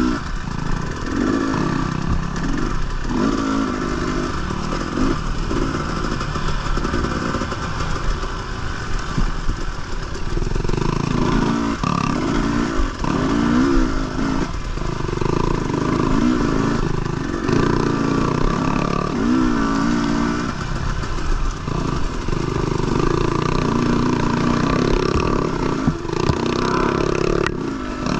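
Dirt bike engine revving up and down again and again as the throttle is worked over rough trail, with occasional knocks and rattles from the bike.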